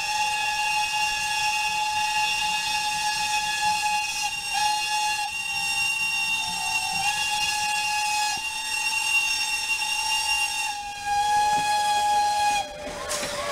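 Steam locomotive whistle blowing one long, steady blast that cuts off near the end.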